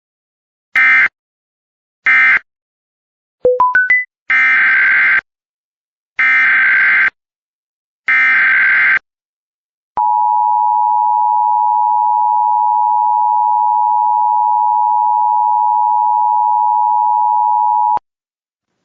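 Emergency Alert System tones: short SAME end-of-message data bursts closing one alert, four quick beeps rising in pitch, then three SAME header data bursts about a second apart. Then the EAS two-tone attention signal, a steady dual tone held for about eight seconds before it cuts off.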